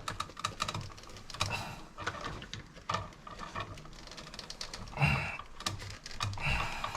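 Pliers gripping and turning out a stripped screw on a wall outlet: irregular small metal clicks and scrapes.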